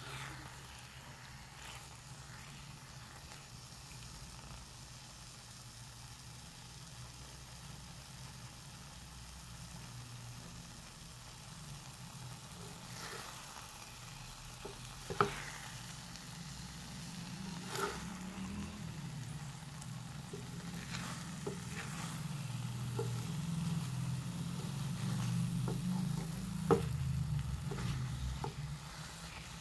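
Eggs and diced tomatoes sizzling in a frying pan as a wooden spatula stirs and scrapes them, with a few sharp knocks of the spatula against the pan, the loudest near the middle and near the end. A low hum grows louder through the second half.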